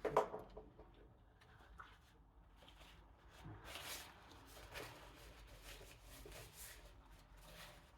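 Faint, scattered chewing and mouth sounds of someone eating baked turkey wing skin, with a few soft clicks.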